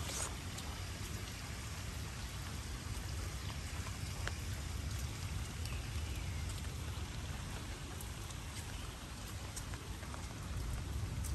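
Light rain falling on tropical foliage and a paved path, a steady hiss with scattered individual drops ticking, over a low steady rumble.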